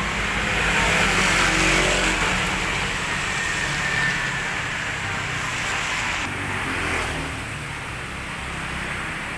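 Kawasaki Z250SL's single-cylinder engine running through an F2racing CLS 20 cm stainless aftermarket silencer, swelling in the first two seconds and then easing back down.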